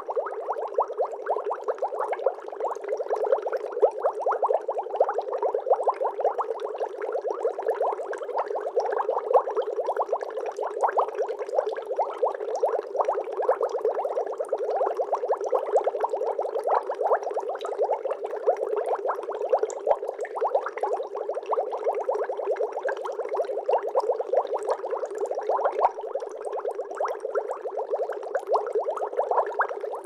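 Aquarium aeration bubbling: a stream of air bubbles rising through the tank water, a steady dense crackle of bubbling.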